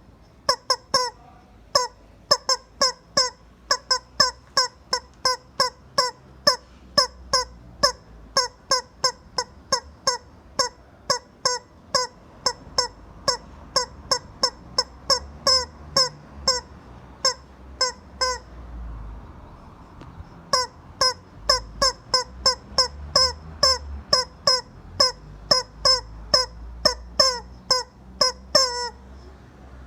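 Rubber chicken toy squeezed over and over, giving short, high squawks about twice a second, with a pause of about two seconds past the halfway point.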